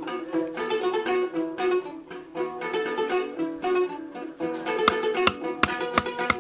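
Music on a plucked string instrument: a quick run of picked notes, with sharp clicking taps joining in about three-quarters of the way through.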